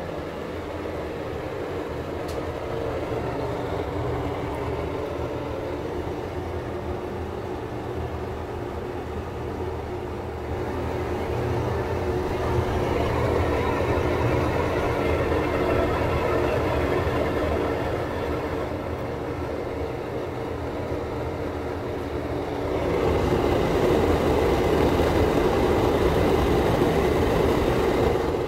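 Old NuTone ceiling exhaust fan running on a cheap replacement motor: a steady motor hum with the rush of air through the blower. It gets louder for a stretch about ten seconds in and again near the end.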